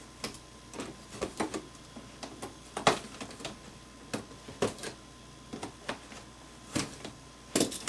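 Pleat spacers (pleat combs) on an Aprilaire furnace filter being snapped loose from the filter media with pliers, one after another down the line: a string of irregular sharp clicks and snaps, a few each second, the loudest about three seconds in.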